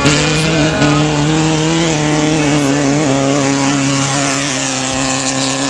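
Off-road race car engine running at high revs, its pitch dropping a step about three seconds in.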